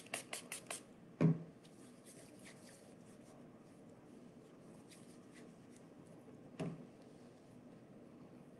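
Hands handling something at a desk close to the microphone: a quick run of clicks at the start, a dull knock about a second in, scattered light ticks, and a second knock later on.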